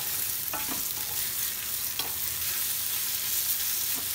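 Grated raw mango frying in mustard oil in a metal kadhai on a low gas flame, sizzling steadily as it is sautéed and stirred with a spatula, with a few short knocks of the spatula against the pan.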